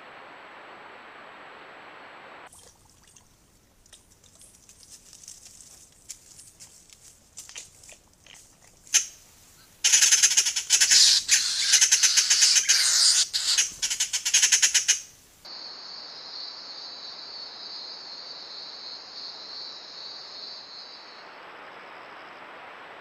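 Several jays squawking, harsh loud calls coming thick and fast for about five seconds from around the middle. Later a steady high-pitched buzz follows for several seconds.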